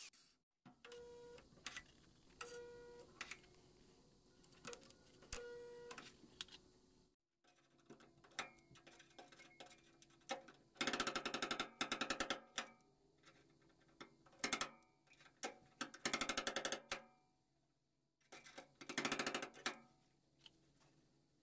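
Stud welder buzzing in three short bursts of rapid crackle, the first about a second and a half long and the other two about a second each, as dent-puller pins are welded one by one onto the steel body panel of a 1954 VW Beetle. Fainter clicks and taps come before them.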